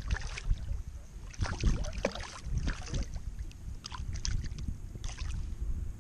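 Low rumble of wind on the microphone with scattered light clicks and taps.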